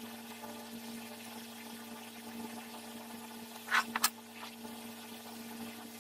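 Steel bolts being threaded by hand into a drill press's cast iron base: a few short metal clicks and scrapes about four seconds in, over a steady low hum.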